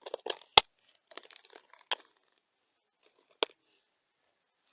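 Fishing tackle handled while a soft-plastic lure is rigged: crinkling and rustling with three sharp clicks, the first the loudest, the last near the end.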